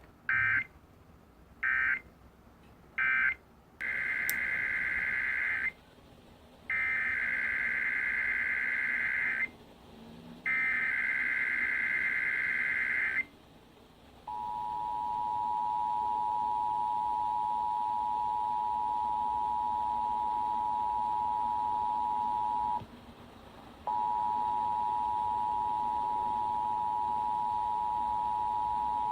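Emergency Alert System tones: three short warbling SAME data bursts, then three longer ones. These are followed by the steady two-tone EAS attention signal, which breaks off for about a second near the 23-second mark and then resumes.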